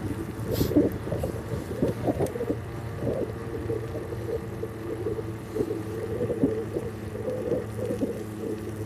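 Riding noise picked up by a handlebar-mounted camera on a moving bicycle: a steady low hum with many irregular knocks and rattles as the bike rolls over the road surface.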